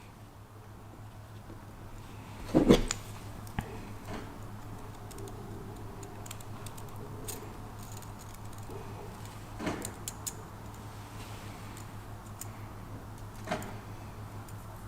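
Small metallic clicks and light knocks from a new oil scraper ring being worked into its groove on a Yamaha R6 piston. The loudest knock comes about two and a half seconds in, with a few scattered clicks later on.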